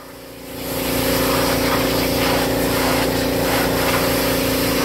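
Diesel-powered parts-cleaning hot tank running with a steady mechanical hum that comes up about half a second in.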